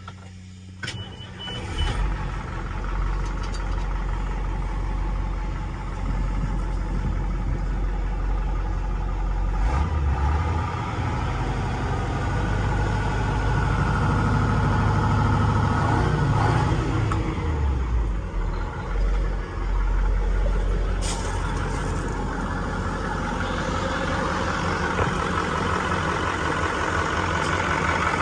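GMC Topkick fire truck's Caterpillar diesel engine, with a click and a short beep as it comes up to running about two seconds in. It is revved up for several seconds in the middle, then drops back to a steady idle.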